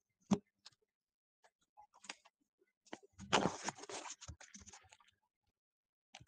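Faint handling noise near the microphone. A sharp click comes first, then a rustling burst about three seconds in that lasts about a second, followed by scattered small clicks.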